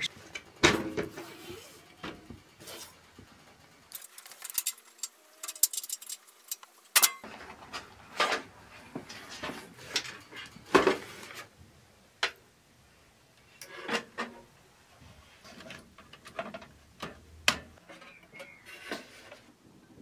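Irregular knocks, clicks and rattles of a steel PC case and motherboard being handled and set in place, with a brief quiet gap about four seconds in.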